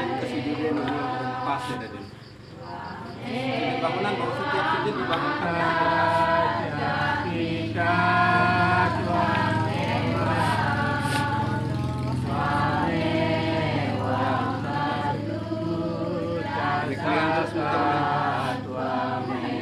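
A group of voices singing a slow chant-like melody together, with long held notes over a low steady hum.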